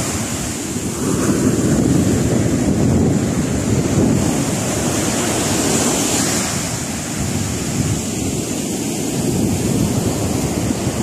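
Sea surf washing up and running over a sandy shore as a steady rushing wash, with wind buffeting the phone's microphone.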